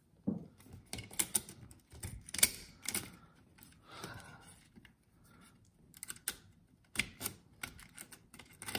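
Irregular plastic clicks, taps and knocks as an old thermostat's plastic base plate is worked loose from the wall and handled, with a screwdriver working at its terminal screws.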